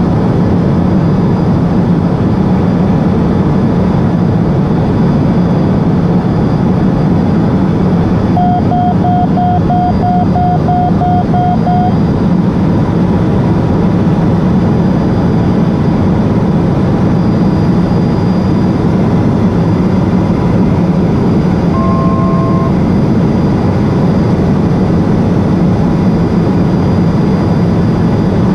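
Steady drone of the Cessna P210 Silver Eagle's Rolls-Royce turboprop engine and propeller heard inside the cabin in cruise descent. About eight seconds in, a cockpit alert beeps rapidly, about three times a second, for three or four seconds; a short two-note electronic tone sounds once near the end.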